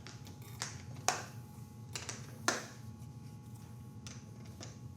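Scattered light clicks and taps of things being handled on a table, about six over five seconds, over a low steady room hum.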